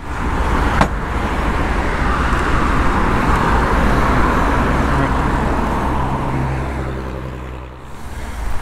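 A road vehicle passing close by: tyre and engine noise swells over the first few seconds, peaks about halfway through, then fades away.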